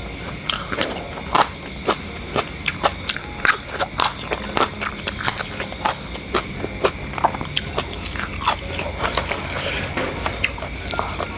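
Eating sounds close to the microphone: irregular crunches and clicks of chewing and utensils, a few times a second. Behind them is a steady, high-pitched chirring of night insects.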